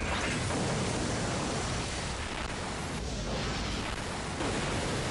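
A loud, steady rushing sound effect of liquid gushing out of a large pipe, a dense hiss that gets a little louder about four and a half seconds in.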